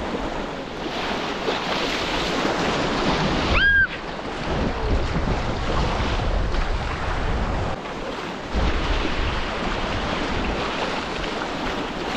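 River whitewater rushing, with wind buffeting the microphone. A brief high-pitched squeal cuts through about four seconds in.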